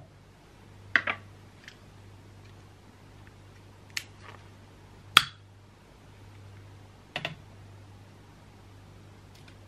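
Small clicks and knocks from handling an amber glass jar candle, its screw lid and a long metal lighter: a handful of separate light taps a second or more apart, the sharpest about five seconds in, over a faint steady low hum.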